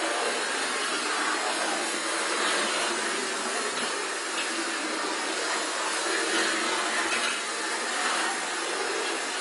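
Model steam locomotive running round a model railway layout: a steady whirring hiss from its small electric motor and its wheels on the metal track.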